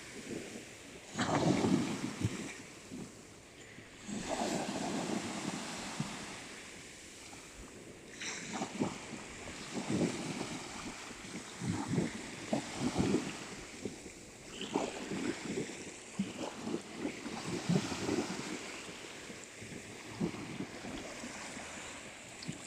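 Sea waves washing onto a beach, swelling every few seconds, with wind buffeting the microphone.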